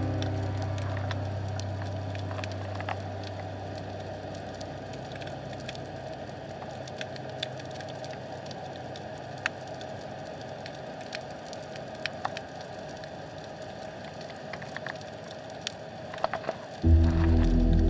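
Underwater ambience: a steady hiss with sparse, sharp clicks and crackles. Background music fades out over the first few seconds, and music comes in loudly about a second before the end.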